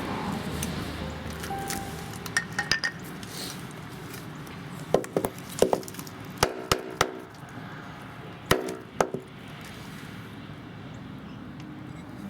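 Sharp metallic clinks, metal striking metal with a brief ring, in irregular clusters of a few strikes each, over faint background music.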